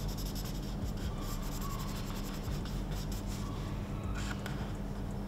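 Marker tip scratching over paper in quick, short back-and-forth strokes as an area is coloured in, over a steady low hum.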